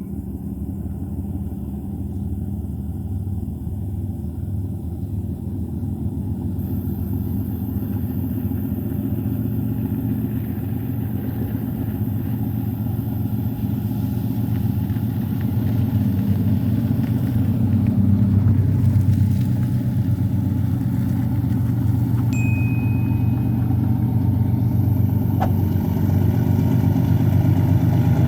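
Diesel-electric freight locomotives working hard under load to climb a grade, their engines running with a deep, steady throb that grows louder as they approach.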